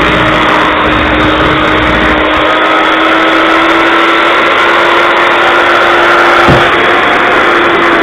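Electric hand mixer running steadily, its beaters whipping batter to a cream-like consistency; a loud motor whine with a faint rise in pitch, and a single knock about six and a half seconds in.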